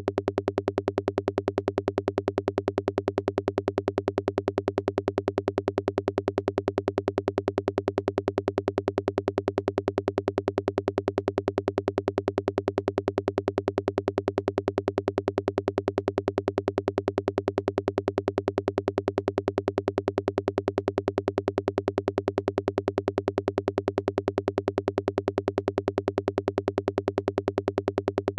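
VCV Rack modular synthesizer patch playing a rapid, evenly repeating electronic pulse over a steady low drone, a psytrance-style sound effect.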